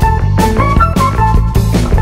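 Instrumental music with a steady beat and a melody of pitched notes.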